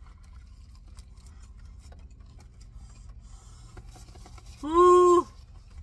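Soft chewing and sandwich-wrapper rustling over a low steady rumble, then near the end a short, loud, high-pitched held "mmm" from a woman, lasting about half a second.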